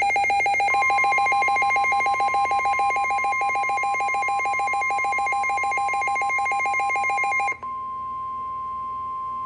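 Emergency weather alert tones: a rapid, ringing pulsed alert tone with a steady high tone, the roughly 1050 Hz weather-radio warning alarm tone, joining about a second in. The pulsed ringing stops about two seconds before the end, leaving the steady tone alone.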